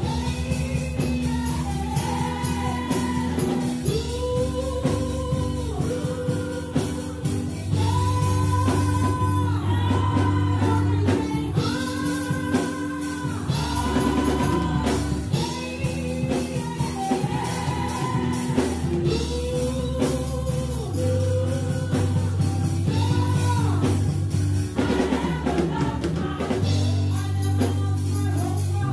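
Gospel choir singing in harmony, with long held notes, over a live band accompaniment with drums keeping the beat.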